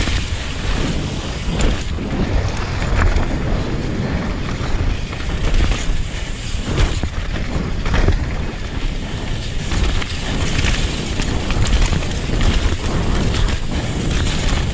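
Downhill mountain bike descending fast over a rocky, rough trail: wind buffeting the microphone and tyres rumbling over stones and dirt, with frequent sharp knocks and rattles as the bike hits bumps.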